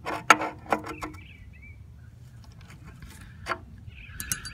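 Several sharp clicks and knocks in the first second, one more about three and a half seconds in, with brief high squeaky chirps between them over a low background rumble.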